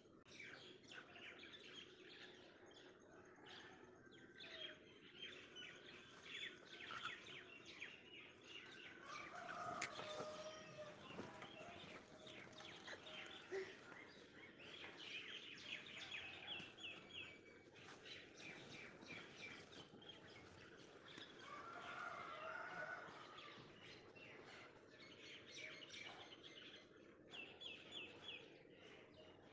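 Faint birdsong: small birds chirping and twittering throughout, with a couple of quick runs of repeated notes.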